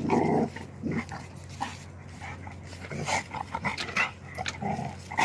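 Two puppies play-fighting, with short dog vocal sounds, the loudest right at the start.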